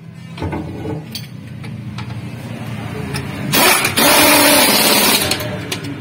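Cordless impact wrench running on a bolt under the van, with a loud burst of hammering that starts about three and a half seconds in and lasts about two seconds before tapering off.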